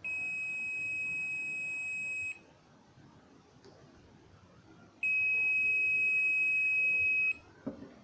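Digital multimeter's continuity buzzer giving two steady high-pitched beeps of a little over two seconds each, the second louder, as the probes bridge the pins of a microwave oven high-voltage capacitor. The beep signals continuity across the capacitor, the sign that it is shorted and defective.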